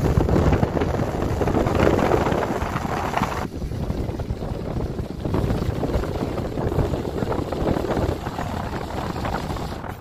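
Wind buffeting the microphone over the running noise of a moving vehicle. About three and a half seconds in, the sound abruptly loses its hiss and turns duller.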